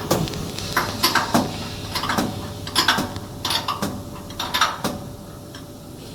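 Irregular light metallic clinks and knocks, about a dozen over five seconds, from metal parts of a band saw log-cutting machine being handled during blade set-up, then quieter near the end.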